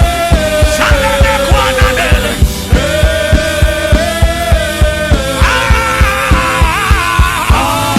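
Worship band music: a steady, quick drum beat under held keyboard chords, with a wavering lead line coming in about a second in and again around five seconds in.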